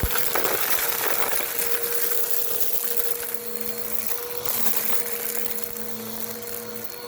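Bissell vacuum cleaner running close up: a steady motor hum under a hiss of rushing air, with a sharp click at the very start.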